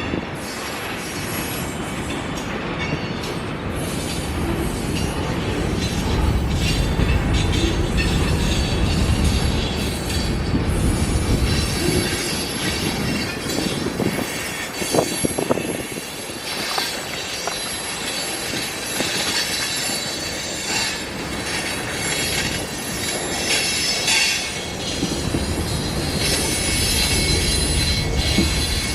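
A train rolling past with a steady low rumble, its steel wheels squealing on the rails in thin high tones through much of the passage, with occasional clicks.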